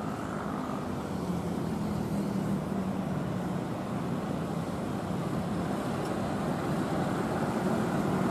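Twin-engine jet airliner on landing approach, its engines a distant steady rumble that slowly grows louder as it comes closer.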